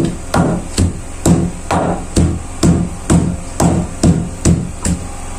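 Wooden pestle pounding bitter kola and black soap in a wooden mortar: steady hollow knocks about two a second, each with a short ring from the mortar, stopping near the end.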